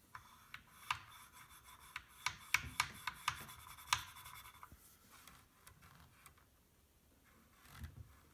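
Sharp plastic clicks and rubbing from hands working the buttons and jog wheel of a Numark DJ2GO2 DJ controller. The clicks are densest in the first half and thin out after that. A soft low thump comes near the end.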